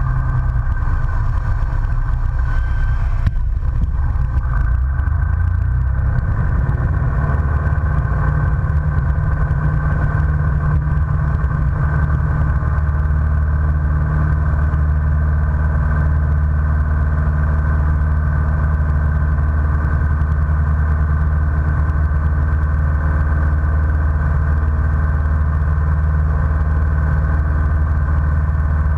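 Single-engine light aircraft's piston engine and propeller heard from inside the cockpit. The power comes up a few seconds in, then holds steady at takeoff power through the takeoff roll and climb-out.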